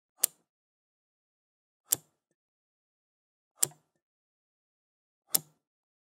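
Safe combination lock dial clicking: four single sharp clicks, evenly spaced about one and a half to two seconds apart.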